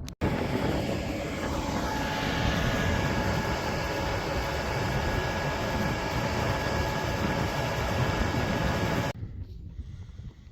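Loud engine noise, a dense rumble with a steady hum and whine over it. It cuts in suddenly near the start and cuts off abruptly about nine seconds in.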